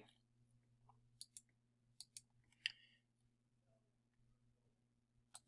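Faint computer mouse clicks, a few of them in quick pairs, as menus and a file-open dialog are worked, over near silence with a faint steady low hum.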